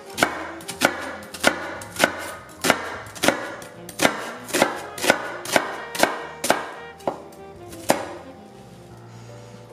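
Knife chopping vegetables on a cutting board: about fourteen sharp, evenly spaced strokes, roughly two a second, stopping about eight seconds in.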